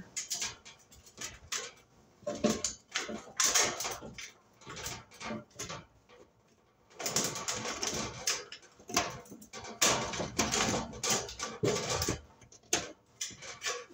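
Hands handling a three-prong range cord and a sheet-metal plate at the wiring opening on the back of an electric range: irregular clicks, taps and scraping of metal, busiest in the second half.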